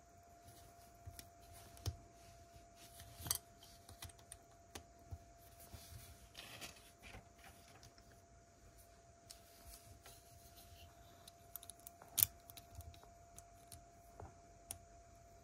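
Plastic Lego pieces being handled and pressed together: scattered small clicks and rattles, a few sharper snaps about 2, 3 and 12 seconds in, and a short stretch of rustling through pieces near the middle. A faint steady hum sits underneath.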